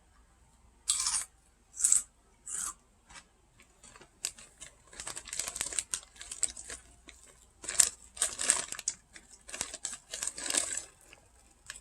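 Crinkling and rustling of a foil snack bag of potato sticks, mixed with the crunch of the sticks being eaten. Three short hisses come about a second apart in the first few seconds.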